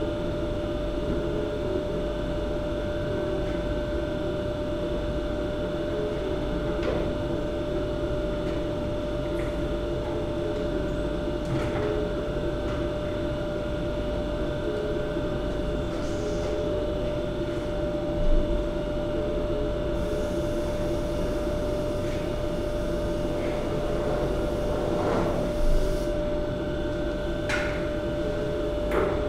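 Steady machine hum, like a fan or blower running, holding one even tone, with a few faint clicks or knocks now and then.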